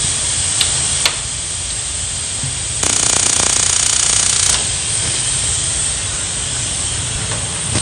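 Steam hissing from a pot on a gas stove, with a louder, fast-rattling hiss lasting about two seconds near the middle.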